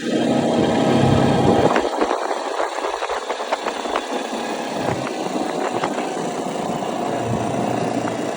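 Quad bike (ATV) engine running steadily while riding, with scattered short clicks and rattles from about two to five seconds in.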